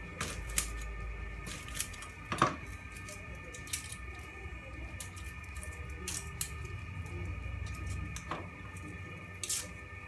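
A kitchen knife tapping and clicking now and then on a plastic cutting board while herbs are cut and garlic cloves are handled: about eight short sharp knocks at uneven intervals, the loudest a few seconds in, over a steady low hum.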